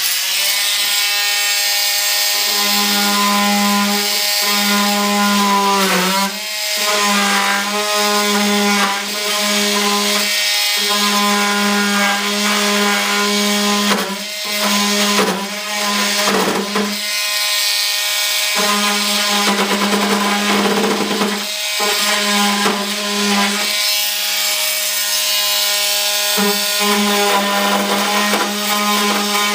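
Small electric power tool, most likely a sander, running steadily with a buzzing motor hum and the hiss of abrasive rubbing on the work. Its pitch and level sag briefly a few times as it is pressed harder or lifted.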